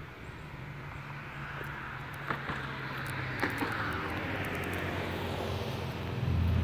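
Outdoor traffic: a vehicle passing, its noise swelling to a peak about halfway through and then fading, over a steady low hum. A louder low rumble comes in near the end, and there are a few light clicks.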